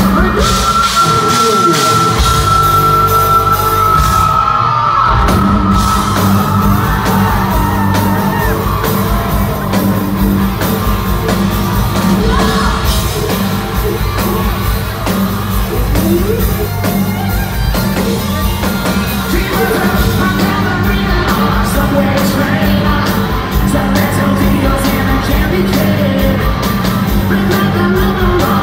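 Hard rock band playing live through a hall PA, recorded from the audience, with a singer yelling and singing over guitars, bass and drums. A long high note is held for the first few seconds, then the low end drops out for about a second before the full band comes back in.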